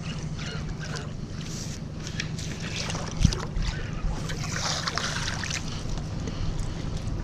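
Fishing boat on the water: a steady low motor hum with wind on the microphone, small clicks and splashes, and a single knock about three seconds in.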